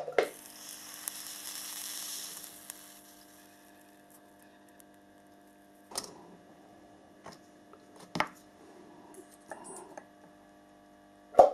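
Resistance soldering unit humming steadily from its transformer while a brass model-rail frog is soldered. A high hissing sizzle at the joint lasts about two seconds at the start, and a few sharp clicks of handling come later.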